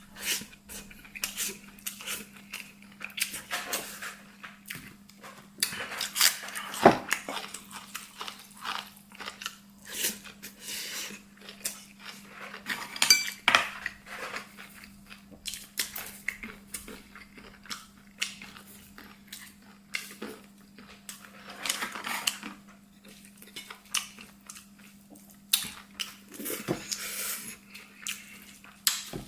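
Eating sounds at a table: utensils clicking and scraping against bowls and plates in irregular short taps, with chewing and crunching between them. A faint steady low hum sits underneath.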